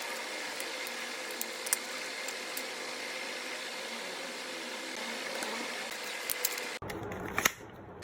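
Steady room noise with a faint hum, broken by a few light clicks of computer parts being handled; the background changes abruptly about seven seconds in.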